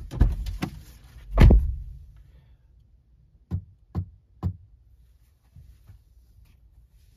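A few dull thumps, the loudest about a second and a half in, then three quick finger taps on a Honda Passport's infotainment touchscreen, half a second apart. Three taps are what switch the screen off.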